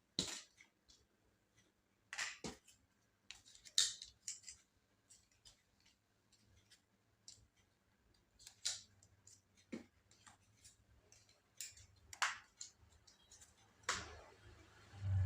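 Scattered light clicks and taps, irregular and spread through the stretch, from tools and small parts being handled while a laptop is taken apart.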